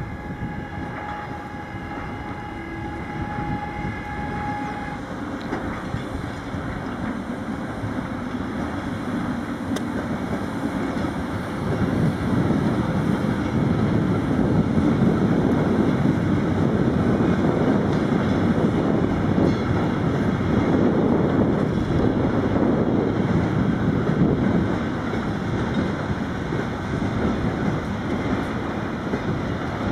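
Siemens ES64F4 Eurosprinter electric locomotive hauling a train of empty flatcars past on the rails. A steady high-pitched tone sounds for the first few seconds, then the rumble of the locomotive and wagons rolling by grows loud about twelve seconds in and eases a little near the end.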